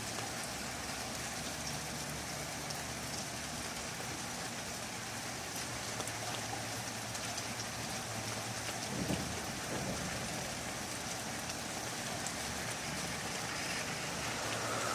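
Steady heavy rain falling, heard through an open window. There is a faint brief swell a little after nine seconds.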